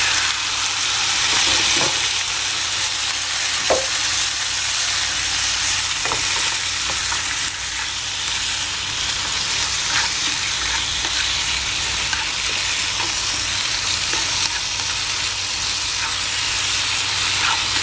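Marinated sliced pork heart sizzling steadily in hot oil in a nonstick frying pan as it is stir-fried, with a few light scrapes of a wooden spatula against the pan.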